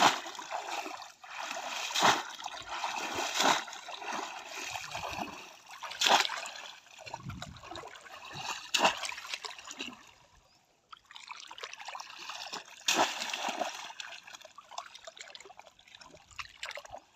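Shallow pond water splashing and sloshing as a bamboo polo fishing basket is plunged down into it again and again, with sharp splashes every one to three seconds and wading through the water in between. A short lull comes about ten seconds in.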